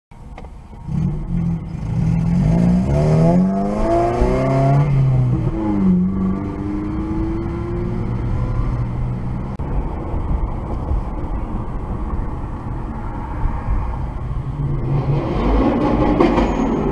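Car engine accelerating. Its pitch climbs for a few seconds, drops about five seconds in, then climbs again more gently and settles into a steady run.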